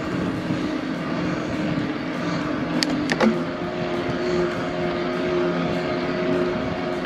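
Electric bike's motor whining steadily under load on a steep climb, over wind and tyre noise. A couple of sharp clicks come about three seconds in, and right after them the whine steps up to a higher pitch.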